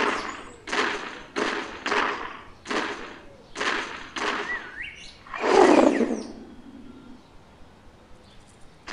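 Heavy footsteps of a cartoon dinosaur, a Carnotaurus, padding across sand, about one and a half steps a second. Near the middle comes one longer, louder, deeper step or thud, and then the steps stop.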